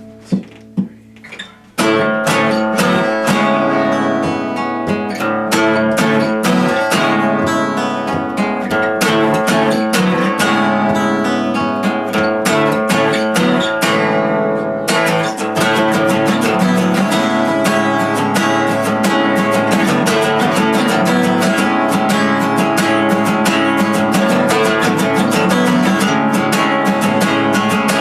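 Instrumental passage of a song led by strummed guitar: a few single struck chords that ring out, then steady full strumming from about two seconds in, growing thicker about halfway through.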